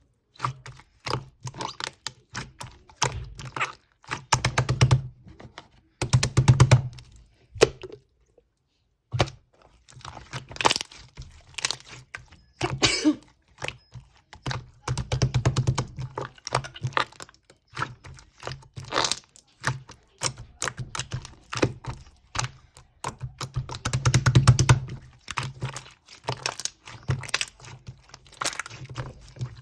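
Clear slime being squished, pressed and stretched by hand, giving dense runs of crisp clicks and pops, with a brief pause about eight seconds in.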